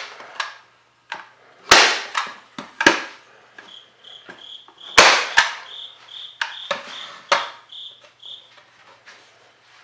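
Craftsman manual staple gun firing staples through carpet into a plywood board: a handful of sharp snaps, the loudest about two, three and five seconds in, with smaller knocks between. A faint high chirp repeats about three times a second through the middle.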